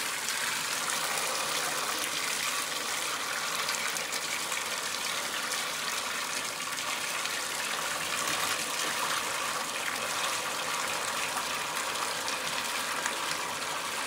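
Water running steadily from a bathtub spout into the tub, splashing over a hand held in the stream, with the shower valve turned to its hot stop to test how hot the water gets.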